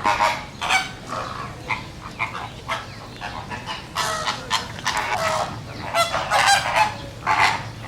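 A flock of flamingos honking: many short, goose-like calls overlapping, with a few longer honks in the second half.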